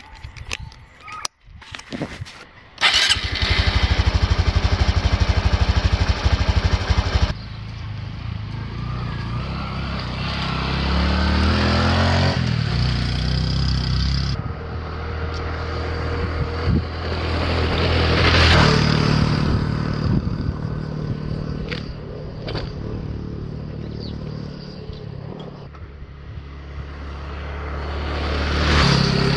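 Small Honda single-cylinder four-stroke motorbike: a few clicks of handling at the start, then the engine starts about three seconds in and idles loudly close by with a quick even beat. It then revs and pulls away with rising pitch, and later rides up and past, the engine growing louder as it approaches near the end.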